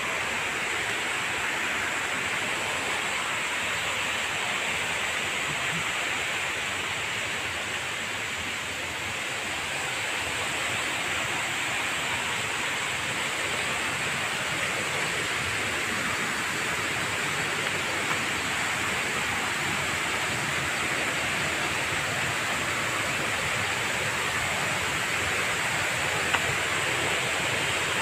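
Steady rushing roar of a waterfall, an even hiss of falling water that holds at one level throughout.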